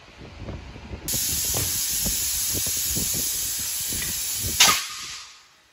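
Compressed air hissing steadily through an air hose and chuck into a large truck tire, starting about a second in. Near the end comes one sharp, loud burst of air, and then the hiss dies away.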